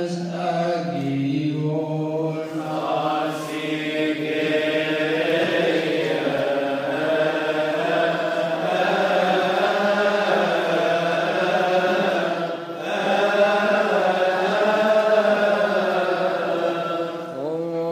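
A male cantor chanting a Coptic psalm in a long, melismatic line, holding vowels and winding the melody slowly up and down. There is a short break for breath about twelve seconds in.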